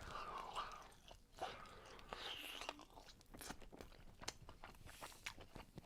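Faint, close-miked chewing of a baked chicken wing with a crisp crust: small irregular crunches and mouth clicks.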